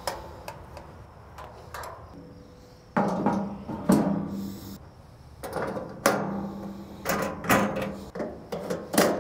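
Metal clanks and knocks as a flat top grill is put back together: the griddle plate is set down on the burner box and the metal side shelves are slotted back into place. The first few seconds hold only small clicks, then come about eight sharp knocks, several with a short low ring.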